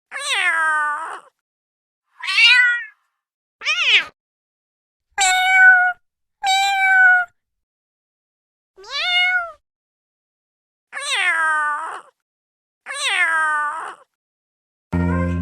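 Domestic cat meowing eight times, each meow a separate call under a second long with silence between, most falling in pitch. Music starts right at the end.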